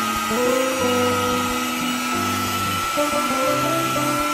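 Electric hand mixer running at a steady speed with a high whine, beating an egg, sugar, butter and oil cake batter; background music plays under it.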